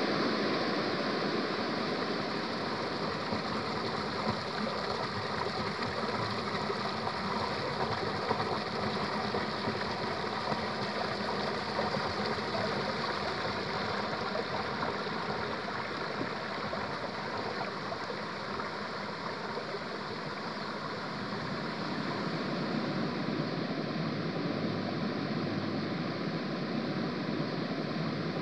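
Water cascading down a stepped stone waterfall, making a steady rushing sound.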